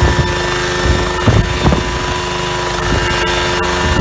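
Homebuilt coaxial helicopter running with both rotors turning: a steady engine drone with the blades' whoosh, broken by uneven low rushes.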